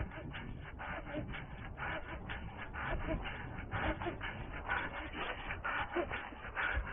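A runner's footsteps swishing and thudding through long grass and undergrowth in a steady rhythm of about three steps a second, with hard breathing.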